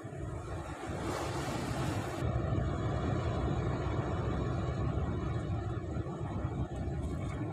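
Wind rumbling on the microphone over the steady wash of sea surf, with a brief rush of louder hiss about a second in.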